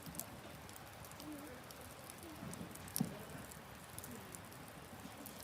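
Wood campfire burning with scattered crackles and small pops, one sharper pop about three seconds in.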